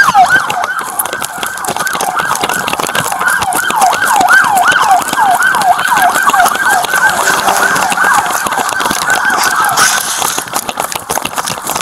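Police car siren on a fast yelp, its pitch sweeping up and down about three times a second, cutting out about ten seconds in. Under it are knocks and rustling from the body-worn camera as the wearer runs.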